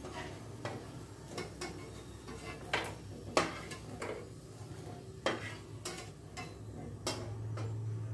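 Metal tongs and a wire strainer clinking and scraping against a frying pan as food is lifted out: irregular sharp clicks, a few louder near the middle, over a low steady hum.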